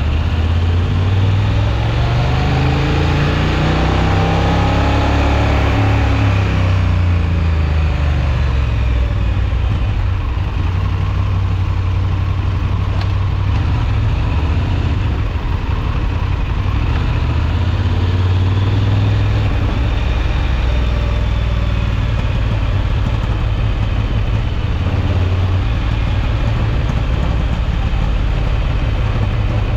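Honda XL750 Transalp's 755 cc parallel-twin engine running. It rises in pitch over the first four seconds or so, falls back by about eight seconds in, then runs at a steadier speed.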